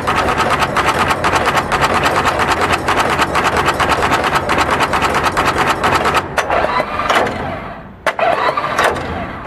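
Axial component insertion machine running: a fast, even mechanical clatter of many strokes a second, which thins out and turns irregular about six seconds in.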